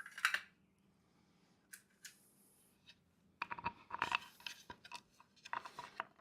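Light clicks and rattles of small hardware and wooden parts being handled, with a couple of knocks at the start and a busier run of clicking in the second half.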